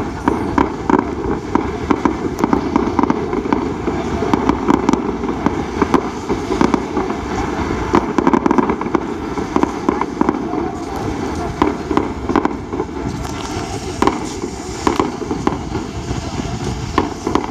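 Fireworks going off from a ground launch point in a rapid, continuous run of pops and bangs, several a second, with low bursts firing one after another.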